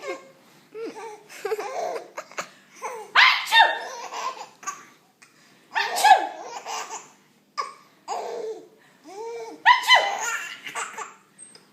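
Baby boy laughing hysterically in repeated bouts a second or two apart, set off by his mother's fake sneezes.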